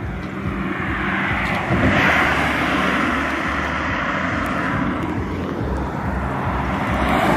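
Cars passing close by on a road, their tyre and engine noise swelling as each goes by, loudest about two seconds in and again near the end.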